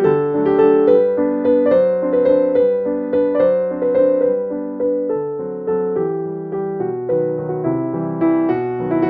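Background piano music: a melody of struck notes in a steady rhythm, each fading before the next.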